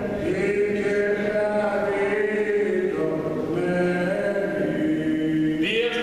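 Orthodox Byzantine chant: voices singing slow, long-held notes that step up and down in pitch over a steady lower note, with a new, higher phrase starting just before the end.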